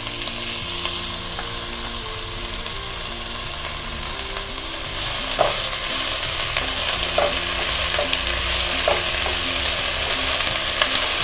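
Fresh moringa leaves sizzling in hot oil in a nonstick kadai while a spatula stirs and tosses them, sautéing the leaves down. The sizzle grows louder about five seconds in, with the spatula knocking against the pan a few times.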